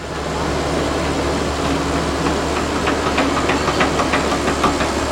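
Heavy diesel truck engine running hard under load in mud, with a steady low drone and hiss. From about a second and a half in, a quick rattle of sharp clicks runs over it.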